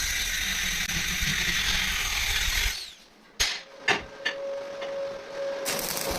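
A power tool running with a loud, rough noise for under three seconds, then stopping; a few sharp knocks follow, and then a steady hum with noisy machining coming back near the end.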